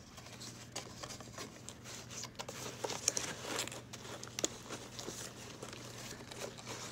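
Paper shred and cardstock rustling and crinkling, with scattered light taps and scrapes, as hands work a filled cardstock box into a paper vending machine.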